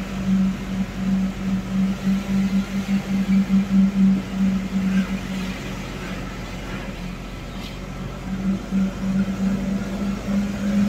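A moving vehicle's engine running at a steady pace with a pulsing drone, dipping for a couple of seconds in the middle, over road and wind noise.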